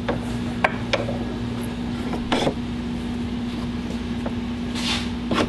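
Wooden bench vise being screwed tight by hand to press a friction ring into a differential clutch plate. The vise handle and screw give scattered clicks and creaks, with a short rasp near the end, over a steady low hum.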